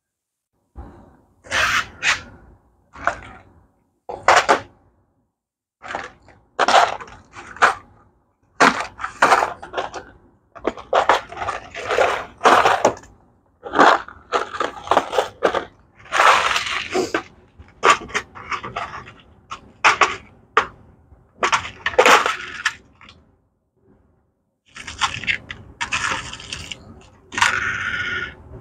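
Workshop handling noises: an irregular clatter and scraping of small hard parts and tools being picked up and set down, in short bursts with brief silences between.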